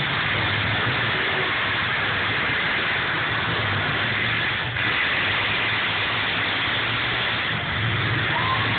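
Several demolition derby cars' engines running and revving together in a steady din, the low engine note swelling and easing every second or so.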